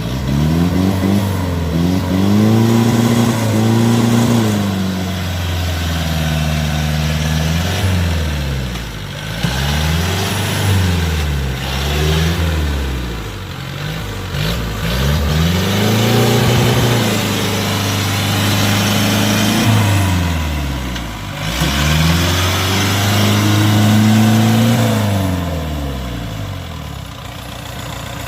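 Diesel engine of a tracked rice-harvest machine revving up and down over and over, surging every two to three seconds, as it labours in deep mud; it eases off near the end.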